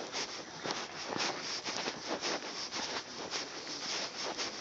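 Handling noise on the camera's microphone: something rubbing over it, giving an irregular crackling, scraping rustle.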